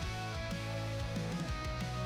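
Background rock music with guitar, between sung lines.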